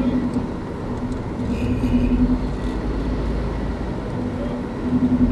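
Car driving, heard from inside the cabin: low engine and road rumble with a steady engine hum that drops away in the middle and comes back near the end.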